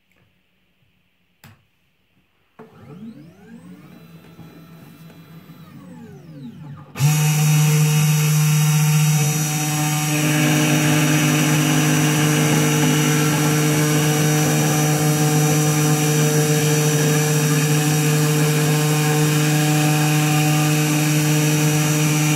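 Desktop CNC milling machine: a couple of faint clicks, then its stepper motors whine in rising and falling pitch as the axes move. About seven seconds in the spindle motor starts suddenly and runs loud and steady, with the bit drilling into a plastic ping pong ball.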